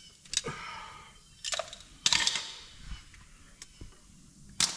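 Metal hand tools, locking pliers among them, clanking and clinking against the axle and suspension parts: several sharp metallic knocks, a few ringing briefly, the loudest about two seconds in and another just before the end.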